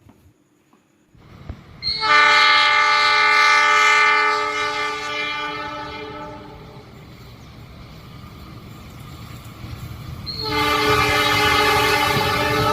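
A train horn sounds a long blast about two seconds in that fades away over several seconds, then sounds again near the end, over a steady rumbling train-running noise.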